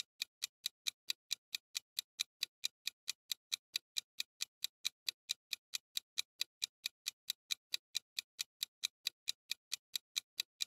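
Countdown-timer sound effect of a clock ticking steadily, about four sharp ticks a second.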